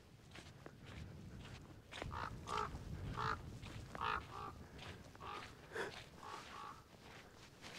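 A bird calling in short repeated calls, about ten of them, many in quick pairs, starting about two seconds in.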